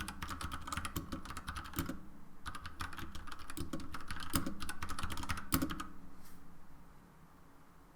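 Typing on a mechanical keyboard with Gateron brown switches and vintage-style keycaps: a fast run of key clacks that thins out and stops about six seconds in.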